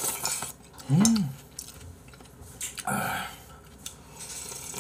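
Slurping noodle broth from a small bowl held to the mouth, with light clinks of bowl and chopsticks and a short hummed "mm" rising and falling in pitch about a second in.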